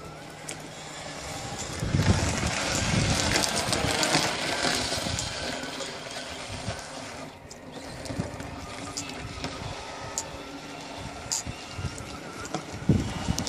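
Radio-controlled rally car driving and sliding through snow, its motor and spinning tyres heard at a distance, with wind on the microphone. The sound swells for a few seconds about two seconds in.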